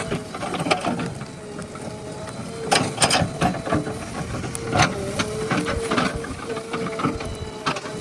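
JCB backhoe loader at work: its engine and hydraulics hold a steady tone while the bucket and arm give irregular knocks and rattles.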